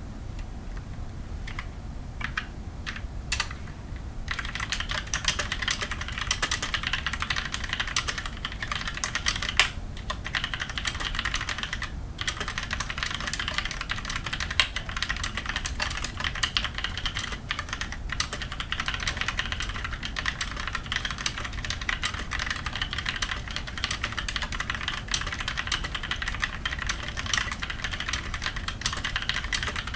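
Typing on a MAXTILL TRON G400K tenkeyless mechanical keyboard with linear Outemu Black switches: a few separate keystrokes at first, then fast, continuous typing from about four seconds in, with a couple of brief pauses.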